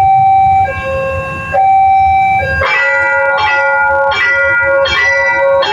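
Indonesian railway level-crossing warning siren: a two-tone high-low electronic tone alternating about once a second, switching about two and a half seconds in to a repeated electronic bell chime struck roughly every three-quarters of a second.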